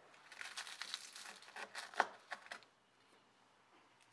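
Large knife crunching down through crisp, flaky layered shaybiyat pastry: a run of crackling crunches with a few sharp cracks, the loudest about two seconds in. It stops a little past halfway.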